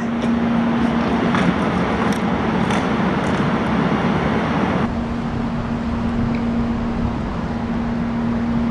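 Steady motor-vehicle noise: a constant engine hum under a wash of traffic noise, the wash easing off about five seconds in.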